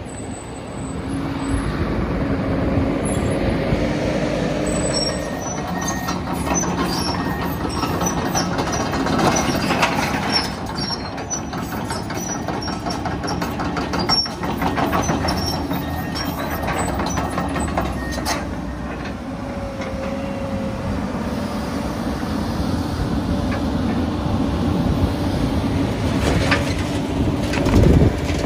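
Komatsu PC240LC hydraulic excavator's diesel engine running under load as its grapple tears into a building's roof and walls, with repeated crashes and clatter of breaking debris. The loudest crash comes near the end.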